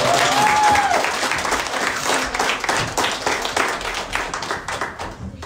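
A small audience applauding with dense clapping that tapers off toward the end, with one voice letting out a short rising-and-falling cheer about half a second in.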